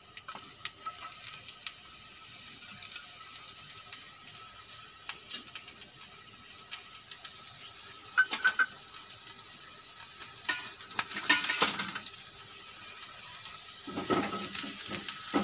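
Finely chopped garlic sizzling in hot oil in a nonstick frying pan, a steady hiss with many small pops. Near the end a spatula stirs it, adding clicks and scrapes against the pan.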